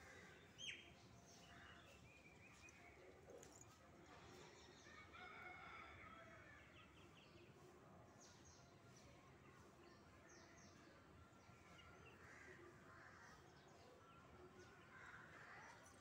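Faint outdoor background of birds chirping and calling now and then, with one short, sharper falling whistle-like call about a second in.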